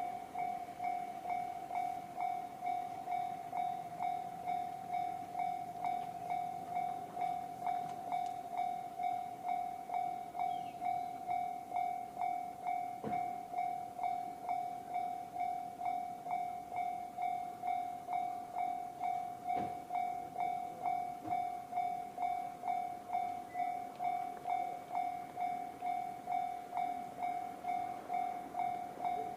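Japanese railway level-crossing alarm sounding the JR standard electronic bell tone, one even ding repeated a little over twice a second.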